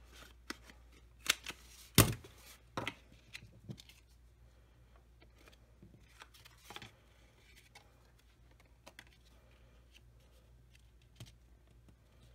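Handheld corner rounder punch snapping through cardstock, a handful of sharp clicks in the first few seconds with the loudest about two seconds in. Quieter paper rustling and light taps follow as the paper pieces are handled.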